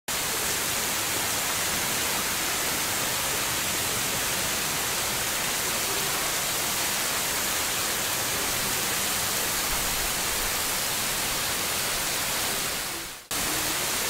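Steady hiss of a thin waterfall spraying and splashing down a sandstone cliff overhang. It fades out briefly and cuts back in near the end.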